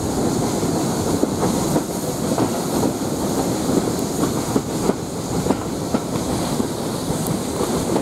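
Steam-hauled passenger train behind Bulleid West Country class locomotive 34028 Eddystone, running along the line and heard from a carriage window just behind the engine: a steady rumble with short clicks repeating every half second or so.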